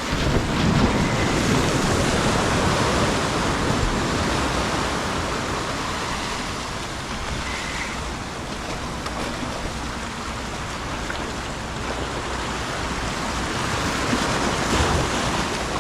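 Ocean surf washing against the shore: a steady rush of waves, swelling louder about a second in and again near the end.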